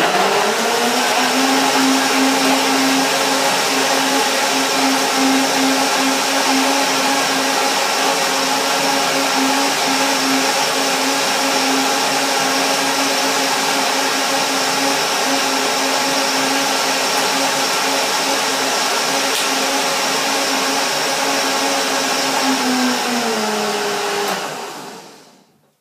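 High-powered countertop blender running at full speed, blending spinach, bananas and coconut milk into a smoothie. The motor is still speeding up in the first second, holds a loud steady whine, then winds down near the end and stops.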